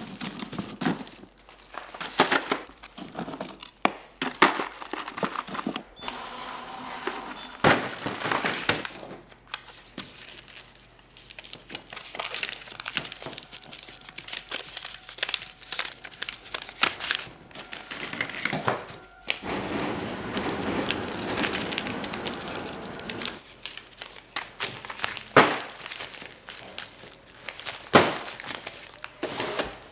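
Irregular sharp knocks and cracks with crinkling, as of hard things being handled, broken and wrapped by hand, with a few louder single knocks near the end.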